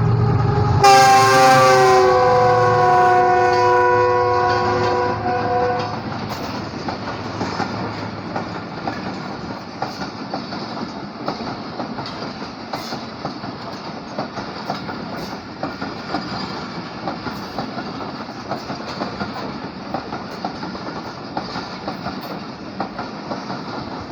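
A Pakistan Railways GEU40 diesel locomotive sounds its horn as it runs through at speed. The horn starts about a second in, drops in pitch as the locomotive goes by, and dies away about six seconds in. Then the coaches run past with a steady clickety-clack of wheels over the rail joints.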